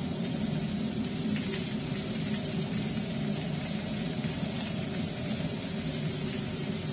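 Sliced leeks sizzling steadily in hot olive oil in a frying pan on a gas hob.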